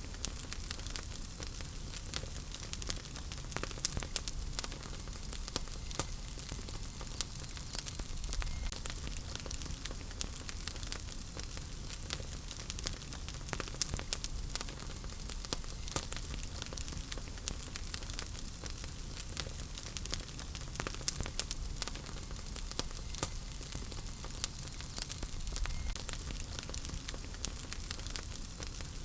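Wood fire burning in a fireplace: a steady hiss with frequent sharp pops and crackles of burning logs.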